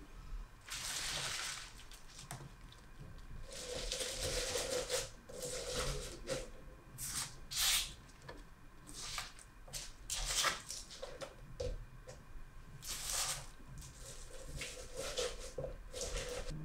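Fresh basil and mint leaves rustling and crinkling as they are dropped and pressed by hand into a plastic blender jug, in irregular bursts with brief pauses.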